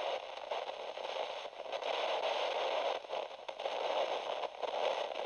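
Radio static: an even hiss heard through a radio's narrow speaker range, dipping briefly a few times.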